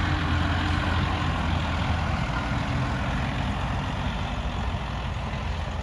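John Deere utility tractor with a front loader, its diesel engine running steadily as it drives slowly across a grass field.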